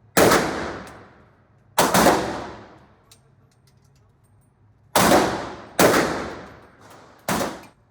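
Five shots from a Desert Eagle .50 AE pistol in an indoor range, spaced irregularly, each booming and then ringing away over about a second. The first two come about a second and a half apart and the last three closer together.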